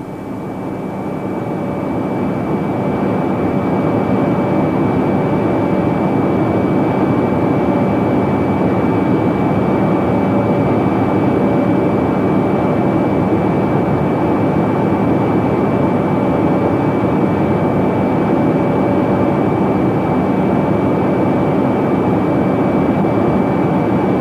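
Harrier jump jet's Rolls-Royce Pegasus turbofan in flight, heard from a camera mounted on the aircraft: a steady rushing jet noise with a thin, constant high whine. It swells in over the first couple of seconds, then holds level.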